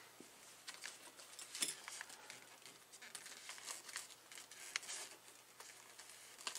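Faint rustling and crinkling of a folded paper instruction sheet held in the hands, with scattered small crackles.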